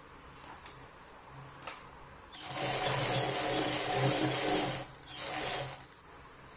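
Industrial single-needle lockstitch sewing machine stitching the side seam of a cloth bag. It starts about two seconds in and runs steadily for about two and a half seconds, pauses briefly, runs again for under a second, then stops.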